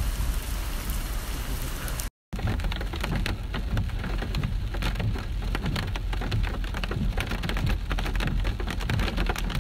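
Rain falling steadily, with many separate sharp drop hits over a low rumble. The rain starts after a short break about two seconds in, which follows a steady hiss.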